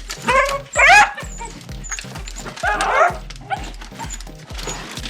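Dachshunds barking and yipping excitedly, several separate barks with the loudest about a second in and near three seconds, over background music with a steady beat.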